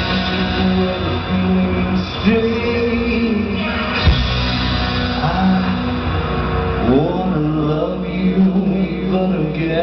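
Rock band playing an instrumental stretch, with electric guitar holding long notes and bending upward about seven seconds in, over bass and drums.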